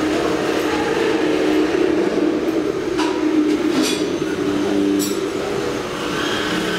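Metro station concourse ambience: a steady hum and background din, with three sharp clicks about halfway through.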